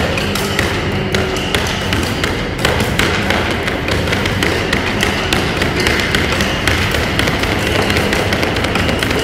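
Amplified cello played percussively: a dense run of rapid, irregular taps and knocks on the instrument over a noisy, buzzing wash, loud throughout.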